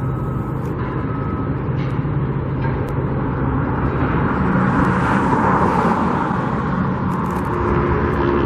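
Road traffic noise with a steady low engine hum, and a vehicle passing by, its tyre-and-engine hiss swelling and fading about midway.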